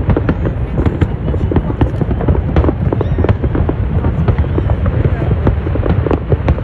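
Fireworks bursting in quick succession: many sharp crackling pops and bangs, several a second, over a continuous low rumble.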